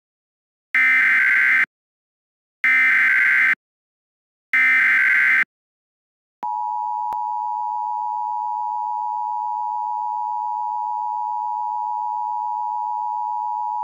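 Emergency Alert System SAME header: three short bursts of buzzing digital data tones, about two seconds apart. About six seconds in, a long steady EAS attention tone starts and holds.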